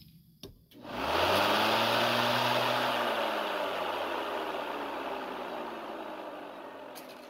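Engine running, coming in about a second in after a couple of clicks, its pitch rising slightly and then settling as it slowly fades.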